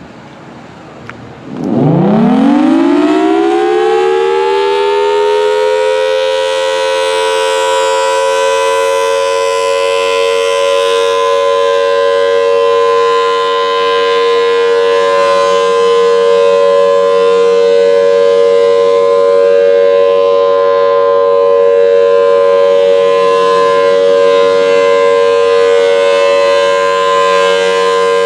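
Federal Signal Thunderbolt 1003 outdoor warning siren starting its alert signal: about a second and a half in it winds up with a fast rising wail, then settles into a loud, steady, two-note tone held without a break.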